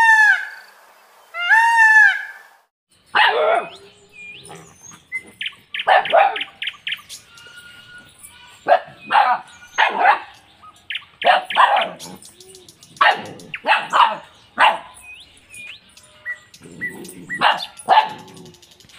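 A short intro sound of two arching, rise-and-fall tones, then puppies barking and yipping in short, irregular bursts, with small birds chirping faintly between the barks.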